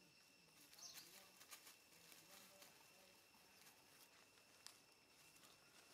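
Faint rustling and scuffling of dry leaves and a plastic mesh basket as young monkeys wrestle in and around it, with many short irregular clicks. Underneath is a steady, high insect drone.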